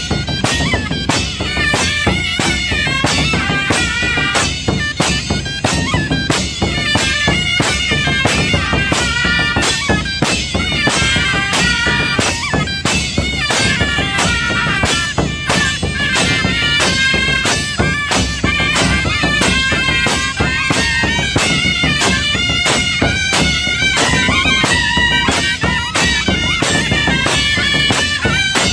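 Chinese folk band accompanying a stilt-walking troupe: a loud reedy suona (shawm) melody over a steady beat of drum and percussion.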